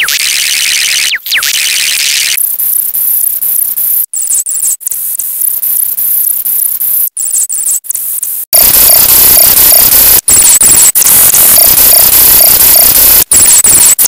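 Heavily distorted electronic tones and hiss with short dead gaps. About eight and a half seconds in it jumps to a harsh noise across the whole range, with repeating beeps in it.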